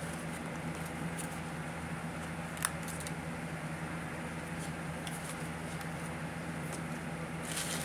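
Laminated paper cards being handled and flipped through, with a few light clicks and taps and one sharper click about two and a half seconds in, over a steady low hum.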